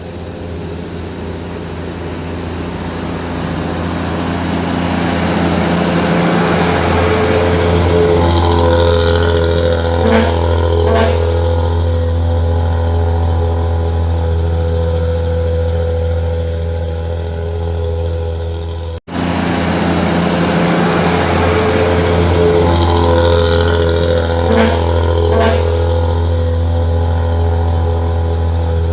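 Nissan CB87 bus's diesel engine running through its 'ngorok' exhaust, a deep, steady snoring rumble. It grows louder over the first several seconds, then holds steady. About two-thirds of the way in it cuts out for an instant before carrying on.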